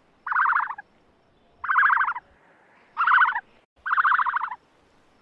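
A rasping, rapidly pulsed animal call, repeated four times about a second and a half apart, each call lasting about half a second.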